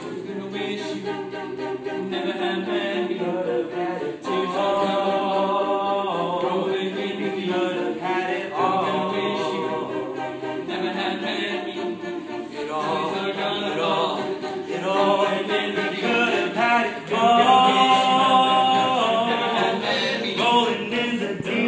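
Men's a cappella group singing in close harmony, held chords changing every second or two, swelling louder about three quarters of the way through.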